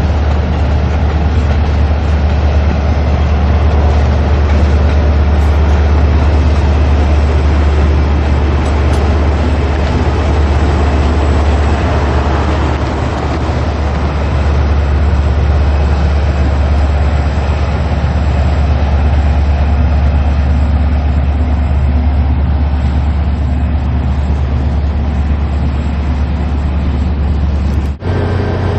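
Train running: a loud, steady low rumble under constant noise, broken by a brief dropout and an abrupt change near the end.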